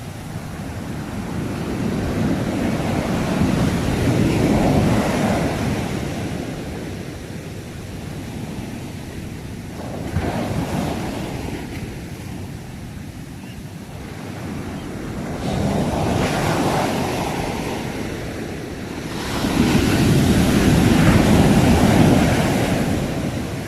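Sea waves breaking and washing ashore, the surf swelling and fading about every five to six seconds, four times, the last one the loudest.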